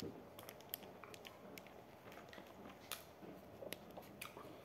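Faint eating sounds: scattered small clicks and smacks of chewing panettone, with soft crackles as a piece of the cake is pulled apart by hand.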